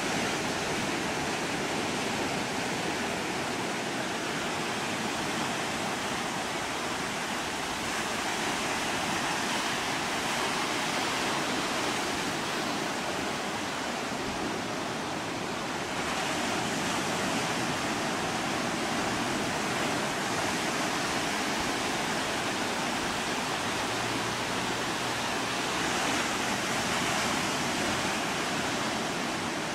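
Steady rush of ocean surf and moving seawater.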